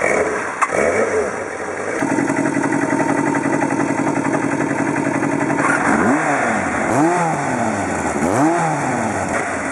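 Kawasaki motorcycle engines running: one is revved once about a second in, then a Kawasaki Zephyr 1100's air-cooled inline-four with an aftermarket muffler idles steadily and is blipped three times near the end, each rev rising and falling quickly.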